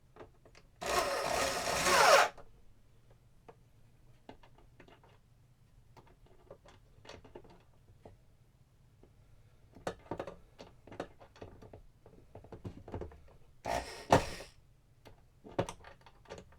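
Cordless drill driving screws in two short runs, its motor whine rising in pitch: a run of about a second and a half near the start and a brief one near the end. Light clicks and knocks of tools and parts being handled fall in between.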